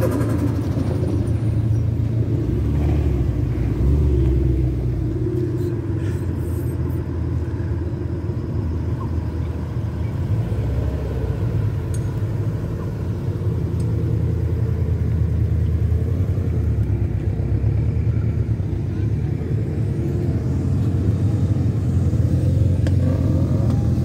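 A line of tuned cars, Subaru Imprezas among them, driving slowly past one after another, their engines and exhausts making a steady low rumble that swells as each car goes by.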